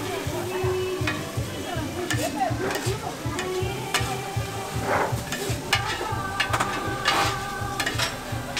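Pork intestines and green onion sizzling and frying on a hot griddle as they are stirred and turned, with scattered sharp clicks of the cooking utensil against the griddle.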